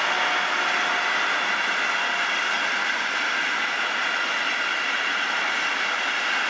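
Loaded sand wagons rolling on the rails behind a receding V300 'Ludmilla' diesel locomotive, a steady rushing rumble that fades slightly as the train draws away.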